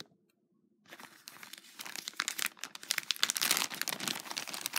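Clear plastic bag of jewelry crinkling as it is handled and opened. Starts about a second in and grows louder.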